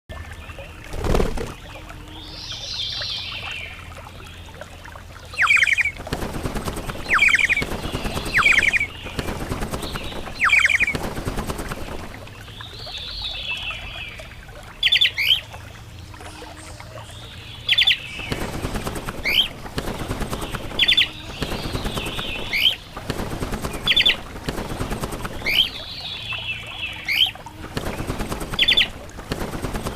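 Birds calling over and over: short, sharp chirps, often in quick doubles or triples, mixed with a few harsher, scratchy calls.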